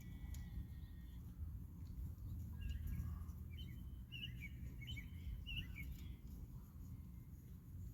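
A bird chirping: a run of short, quick chirps from about two and a half to six seconds in, over a low steady rumble.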